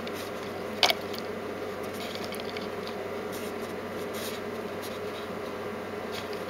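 Steady low room hum, with one sharp click about a second in and a few faint ticks scattered through.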